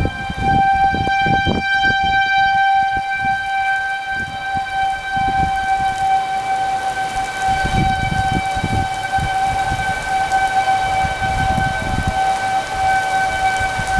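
Outdoor tornado warning siren sounding one long steady tone. Irregular low rumbles of wind on the microphone run beneath it.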